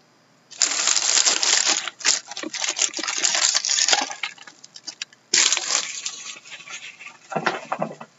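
Hockey card pack wrappers crinkling and tearing as packs are opened by hand, in loud crackly bursts with a short pause about halfway.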